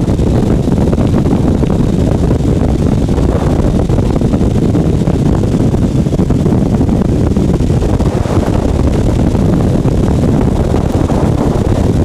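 Steady wind rush and buffeting on the microphone over the running engine of a light aircraft in flight, on approach in strong gusty wind.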